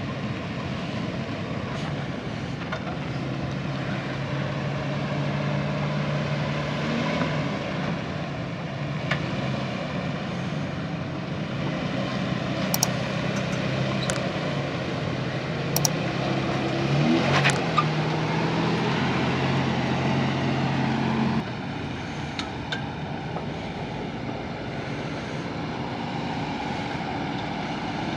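Off-road SUV engines running at crawling speed up a rocky dirt trail: first a Nissan Xterra with a swapped-in Titan V8, then a Jeep Wrangler Rubicon. The engine revs up briefly about two-thirds through, and the sound changes abruptly a few seconds later.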